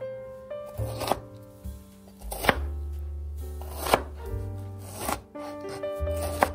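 Kitchen knife cutting through a tomato and knocking on a plastic cutting board: about five sharp strikes, roughly one every second and a half.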